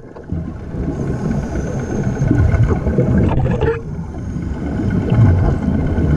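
Underwater rumbling and bubbling from a diver breathing through a surface compressor's air hose (hookah diving), the exhaled air rising in bubbles.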